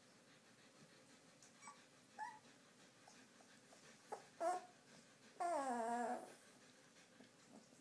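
Two-and-a-half-week-old Afghan Hound puppies whimpering: a few short squeaks, then a longer wavering cry that falls in pitch about five and a half seconds in.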